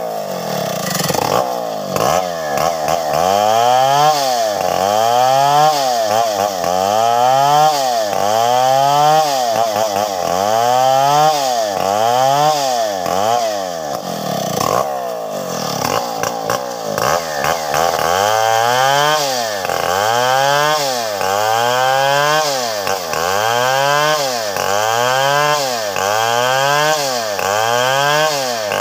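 Stihl 070 two-stroke chainsaw cutting through a felled tree's limbs and trunk. Its engine pitch rises and falls in a steady swing about every second and a half as the chain bites and frees, with a brief dip about halfway through.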